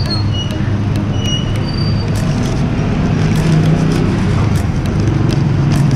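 Road traffic noise: a steady low rumble of passing vehicles, with a few brief high-pitched tones in the first two seconds.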